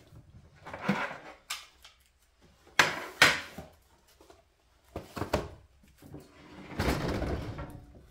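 Handling knocks and clunks as a Nespresso Vertuo Plus coffee machine's plastic body is moved and set on a wooden counter, with a cardboard box shifted aside. Near the end there is a longer rubbing noise of about a second as the machine is pushed into place.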